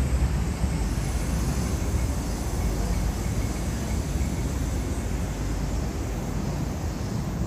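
Steady low rumbling noise of a busy city street.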